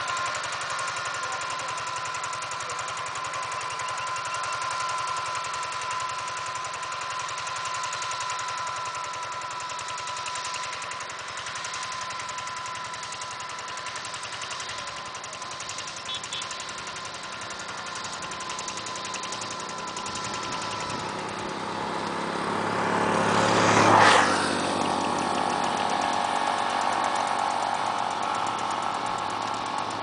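Landmaster two-wheel tractor's single-cylinder diesel engine running steadily under load while ploughing. About three quarters of the way through, the sound swells, peaks sharply and then drops back.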